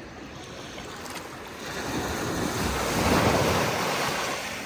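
Ocean waves breaking on the shore. The surf swells from about two seconds in, peaks, then washes back down near the end.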